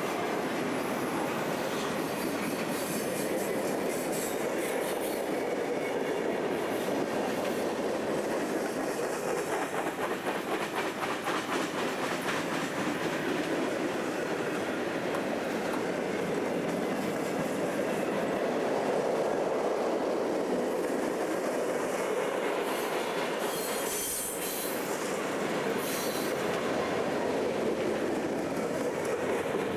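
Freight cars of a long train rolling past close by: a steady rumble and clatter of steel wheels on the rails, with a rhythmic clickety-clack stretch in the middle. High-pitched wheel squeal cuts in a few seconds in and again near the end.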